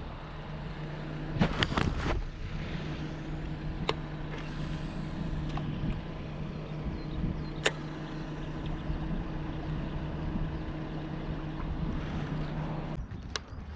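A motor running with a steady low hum that cuts off suddenly near the end, with a few sharp clicks over it.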